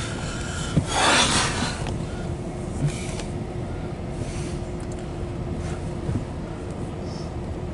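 Loaded autorack freight train rolling through a grade crossing: a steady rumble and rubbing of steel wheels on the rails under a constant low hum, with a louder rushing noise about a second in and a few sharp clicks.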